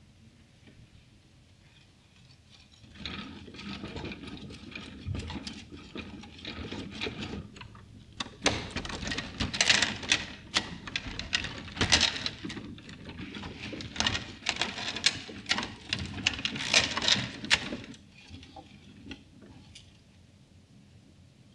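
LEGO Technic plastic gears and chain links clattering as a hamster-driven running wheel turns them: a rapid rattle of many small clicks. It starts a few seconds in, grows louder about halfway through, and stops a few seconds before the end.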